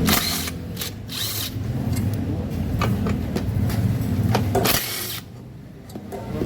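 Power tool run in three short bursts while loosening bolts on a scooter's swing arm.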